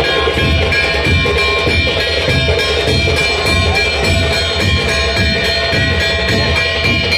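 Music with drums and percussion keeping a beat, under a few long held notes.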